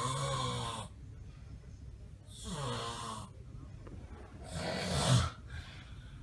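A sleeping person snoring very loudly: three heavy, rasping snores about two seconds apart, the last one the loudest.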